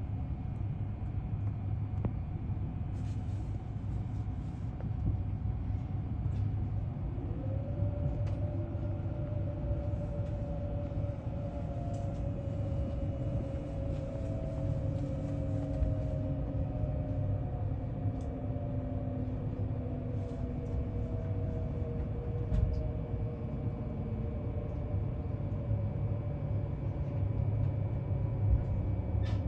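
Inside the cabin of a JR East E657-series limited express train braking into a station: a low running rumble, with a whine from the traction motors that slowly falls in pitch as the train slows.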